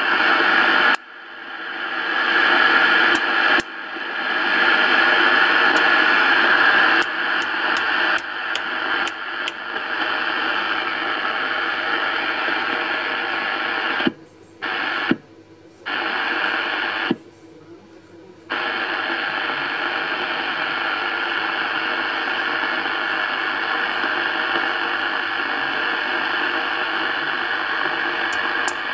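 Zodiac B-5024 23-channel AM CB radio giving out receiver static from its speaker, with sharp clicks as the channel selector is turned. About halfway through, the static cuts out and comes back three times as a front knob is turned, then hisses on steadily.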